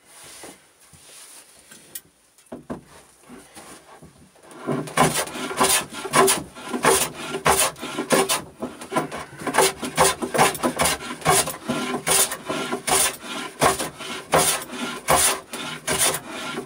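A small hand plane shaving the end grain of a wooden post: quick, repeated scraping strokes that start about four and a half seconds in, after a few seconds of quieter handling. The plane is truing the end grain flat.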